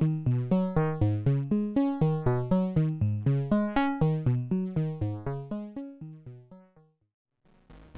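Dual analog 3340-based VCO synthesizer playing a fast sequenced run of short plucked notes, about four or five a second, that fade out about seven seconds in. A new synth sound starts just before the end.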